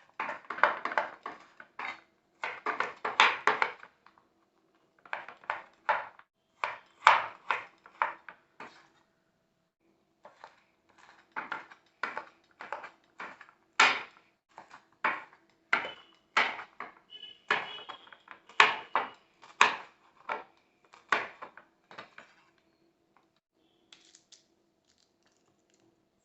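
Kitchen knife chopping vegetables on a cutting board: irregular knocks, one or two a second, with a few quicker flurries, over a faint steady hum.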